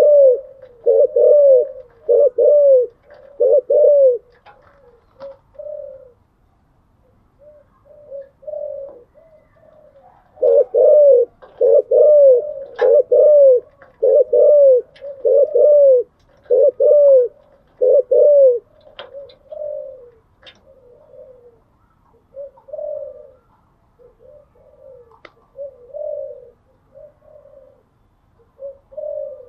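Spotted doves cooing: loud, arched coos come about once a second in two long runs, with quieter, shorter cooing in between.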